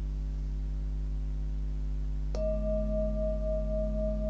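A Himalayan singing bowl is struck once, a little over two seconds in, and then rings on with a clear, steady tone. A low steady hum sits underneath.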